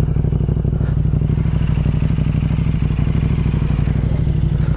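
Ducati Monster 1200 S's L-twin engine idling steadily with an even pulse, at standstill.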